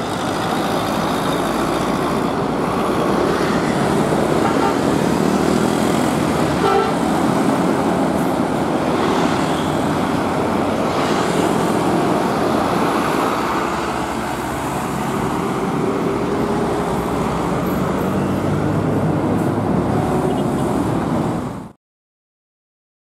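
Busy road traffic with a large tour coach's engine running as it drives past, and a vehicle horn sounding briefly about seven seconds in. The sound cuts off suddenly to silence near the end.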